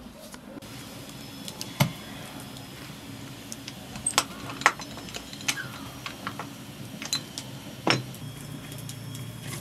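Scattered metallic clicks and knocks from a small aluminium pressure cooker as its lid is handled and worked open, over a low steady hum.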